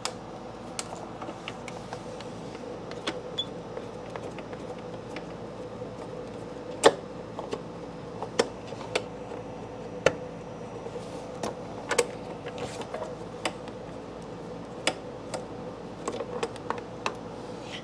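A 5 mm Allen key working two small bolts out of a motorcycle's plastic fog-light cowl: scattered, irregular light clicks and ticks of metal on metal and plastic. A steady hum sits underneath.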